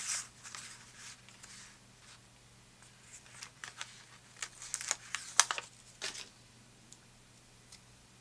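Crinkling and rustling of a paper phrase-sticker sheet being handled and turned over, with a sticker peeled from its backing. It comes in a burst at the start and a busier run of crackles from about three to six seconds in.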